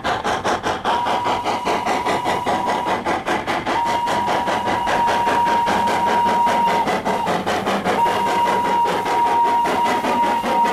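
Strasburg Rail Road No. 475, a 4-8-0 steam locomotive, working with a quick, even beat of exhaust chuffs. Over the chuffs its whistle sounds one steady tone in a long, long, short, long pattern, the grade-crossing signal.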